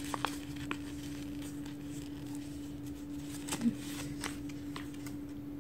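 A folded paper leaflet being unfolded and handled: faint scattered rustles and soft flicks of paper, over a steady low hum.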